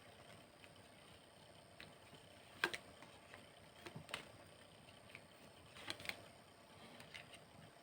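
Faint handling of tarot cards: a few short, sharp taps and flicks, one on its own and then two close pairs, with near silence between.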